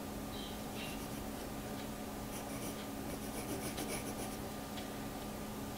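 Pencil sketching on paper: faint short scratchy strokes as hair lines are drawn, over a steady low hum.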